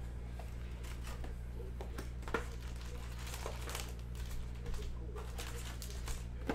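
Cardboard trading-card box being opened and its cellophane-wrapped packs slid out, making crinkling and scattered light clicks over a steady low electrical hum.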